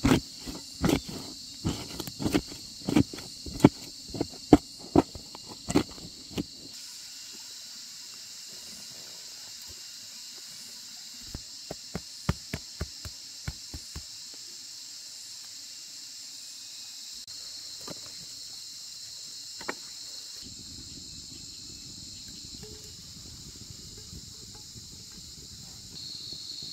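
Steady high-pitched chirring of insects throughout. Over it comes a series of sharp knocks, about two or three a second, for the first six or seven seconds, then a shorter run of lighter knocks about eleven to fourteen seconds in.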